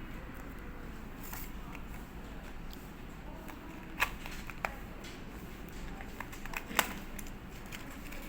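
Small handling noises from an earbud box and its packaging: scattered clicks and taps, with the sharpest about four seconds in and near seven seconds, over a steady low hum.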